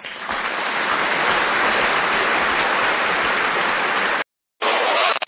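A steady rushing hiss of noise that cuts off suddenly about four seconds in. A brief, brighter burst of noise follows near the end.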